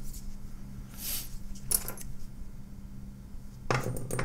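Small metal drill-kit sockets clicking and rattling in their plastic holder as they are tugged at but stay stuck, with a denser cluster of clicks near the end. A steady low hum lies underneath.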